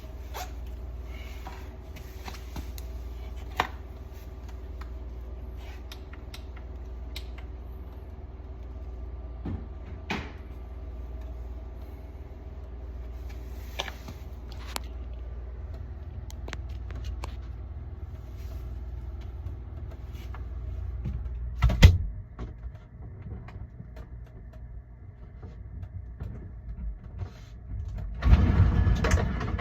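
Scattered clicks and knocks of handling work over a steady low hum. A single sharp knock comes about two-thirds of the way through, and a burst of louder clattering near the end.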